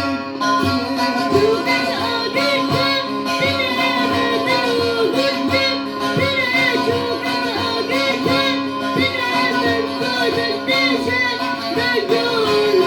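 A song: a solo voice sings winding, ornamented melodic lines over an instrumental backing with a held drone and a steady beat.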